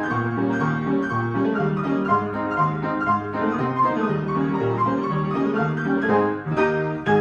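Player piano playing a march from a paper music roll, with a regular beat of bass notes under chords and melody.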